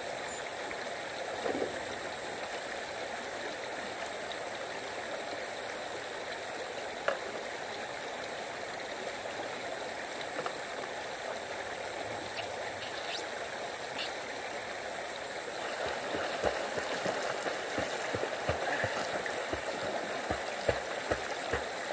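Steady rush of flowing river water. From about two-thirds of the way in, irregular splashing and low knocks join it as the suction dredge on the pontoon raft throws water up beside the raft.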